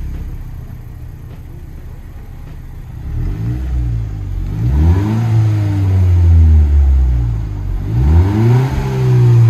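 2018 Honda Civic Si's 1.5-litre turbocharged four-cylinder idling through a Civic Type R retrofit exhaust, then revved about three seconds in and again near the end, each rev rising, holding briefly and falling back. The exhaust note is pretty quiet for a car whose owner wants it louder.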